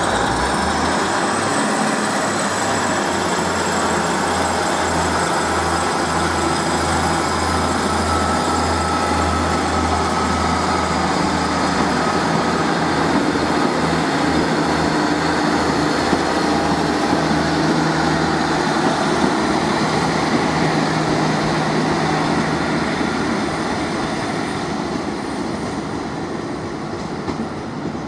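Sprinter diesel multiple unit passing slowly through a station: its diesel engines run with a steady hum and a high whine over the noise of wheels on the rails. The sound fades over the last few seconds as the train moves away.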